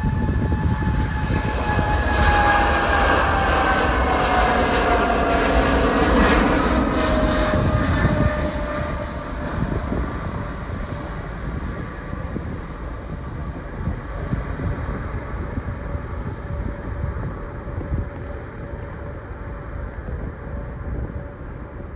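Boeing 777-200LR's two GE90 turbofans at takeoff thrust as the airliner rolls past and lifts off: loud jet engine noise with a whine that falls in pitch as it passes. About eight seconds in the sound drops and goes on as a weaker, fading rumble while the jet climbs away.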